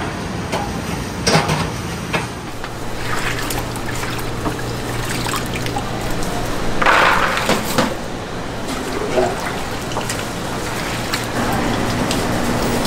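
Soaked soybeans and their soaking water being scooped with a stainless steel scoop, with a wet pouring rush about seven seconds in, over a steady low hum.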